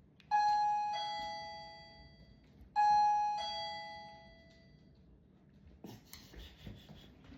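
Plug-in wireless doorbell chime ringing a two-note ding-dong twice, about two and a half seconds apart. Each is a higher note followed by a lower one that dies away slowly.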